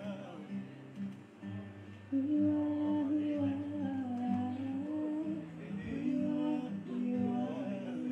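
Acoustic guitar playing chords, joined about two seconds in by a voice humming a melody without words.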